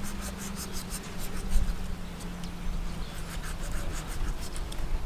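Kitchen knife slicing through raw shark meat against a wooden chopping board: a run of quick scratchy strokes, a pause, then another run of strokes.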